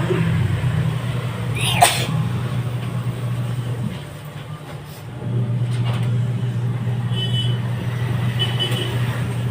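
A single sharp sneeze about two seconds in, over a steady low hum that briefly drops away near the middle.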